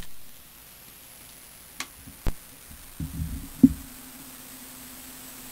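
Cassette player's play key clicking down, then steady tape hiss with a few clicks and low thumps as the tape starts running; a steady low hum joins the hiss a little under four seconds in, before any music begins.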